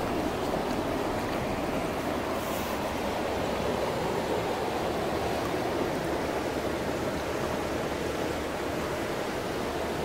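Steady rushing hiss of a wide river current flowing past the bank, even throughout with no distinct events.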